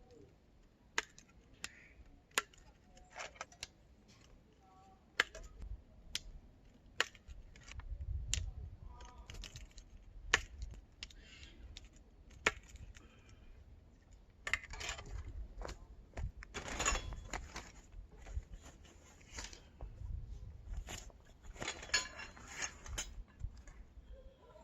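Hard objects being handled: irregular sharp clicks and metallic clinks, then stretches of rustling and low thumps in the second half.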